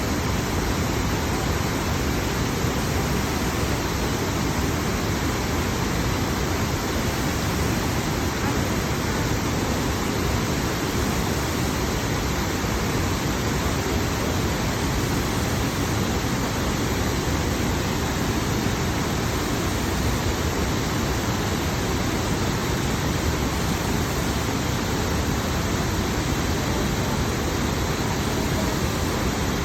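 Steady rushing of a large waterfall, the Great Falls of the Passaic River, an even wash of falling water with no breaks.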